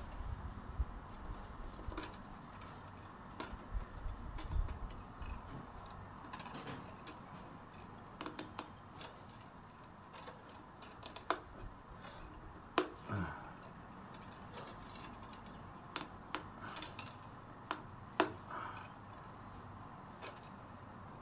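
Thin bamboo strips clicking and ticking irregularly as they are hand-woven into a plaited basket base.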